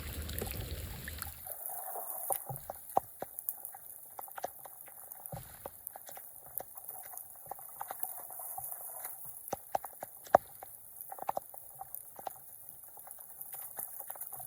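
Water trickling and gurgling with scattered small drips and splashes. A louder rushing noise fills the first second and a half, then stops abruptly.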